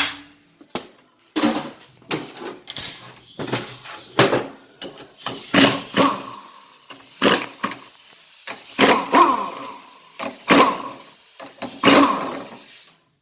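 Irregular metal clanks and knocks, a dozen or so, some ringing briefly: tools and parts being handled during the teardown of a 700R4 automatic transmission.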